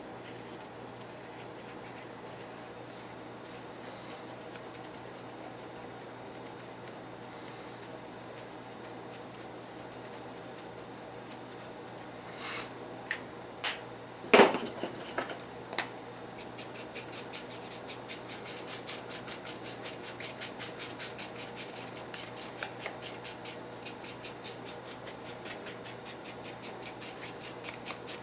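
Felt-tip marker drawn across paper: faint at first, then a few clicks and a knock about halfway through, followed by quick, repeated short scratching strokes, about three a second, as small marks are made over and over.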